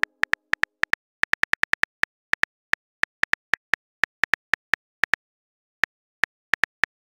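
Phone keyboard typing sound effect: a rapid, irregular run of short clicky taps, each with a slight pitched tone, with a brief pause about five seconds in.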